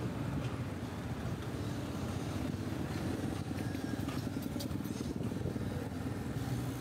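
Motorcycle running steadily on the move, a continuous low rumble with no breaks.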